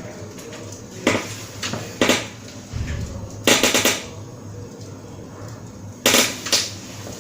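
A handful of sharp metallic clicks and clunks at irregular intervals, with a longer rattle about three and a half seconds in, as power cables are plugged into an HP ProLiant ML350 Gen9 server, over a steady low hum.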